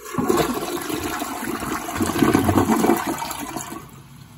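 American Standard Champion one-piece toilet flushing: a loud rush of water that starts suddenly, holds for about three and a half seconds as the bowl drains, then fades.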